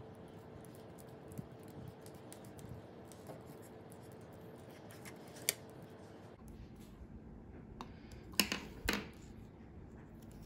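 Soft handling noise of fingers working a soft tape measure around a metal bangle bracelet: faint rubbing and small clicks, one sharper click about halfway through and a few louder clicks near the end.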